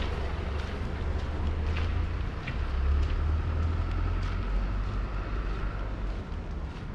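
Wind buffeting an action camera's microphone: an uneven low rumble that swells about three seconds in, over a faint outdoor hiss.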